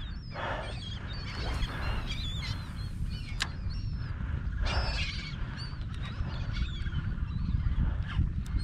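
Many birds calling at once, short high chirps and squawks overlapping throughout, over a steady low rumble.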